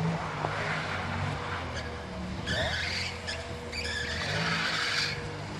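A car's engine pulling hard as the car slides sideways on packed snow, with two bursts of tyre scrabble and spray about midway through.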